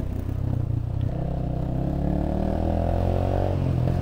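TVS Apache 160 2V single-cylinder engine running through an Akrapovic full-system aftermarket exhaust with its dB killer fitted, which keeps it close to stock loudness. The bike is ridden with the revs rising slowly, then the throttle eases off about three and a half seconds in.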